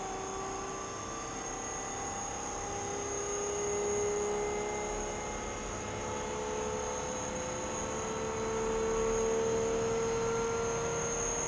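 Small electric motor running, a steady hum with several tones that drift slowly in pitch and a constant high whine.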